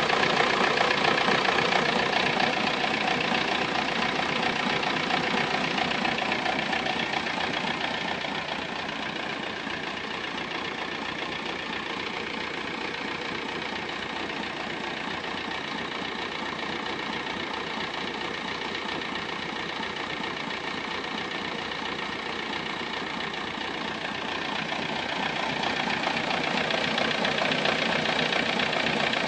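Volkswagen Golf Mk3 engine running at idle with a strange, undiagnosed noise in it. It gets quieter from about seven seconds in and louder again near the end.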